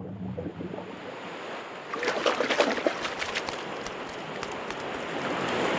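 Sea water splashing and small waves washing over a stony beach. About two seconds in comes a burst of sharp splashes and clicks, which settles into a steady rush of surf.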